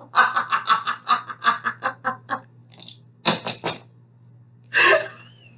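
Laughter: a rapid string of ha-ha pulses for about two seconds, then a few short sharp bursts a little after three seconds and one more burst near the end.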